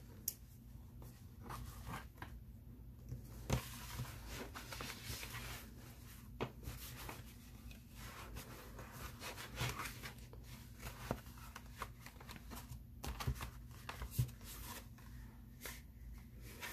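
Paper journal pages and clips being handled: faint rustling of paper with a few scattered light clicks.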